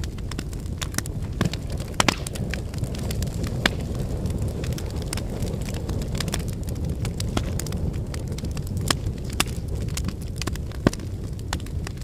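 Log fire crackling, with irregular sharp pops and snaps over a steady low rumble of flames.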